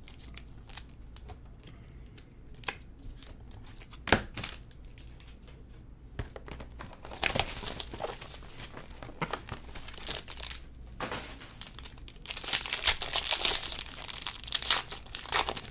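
Plastic and foil wrapping of trading card packs crinkling and tearing as hands open them, loudest in the last few seconds. A few sharp clicks come in the first four seconds.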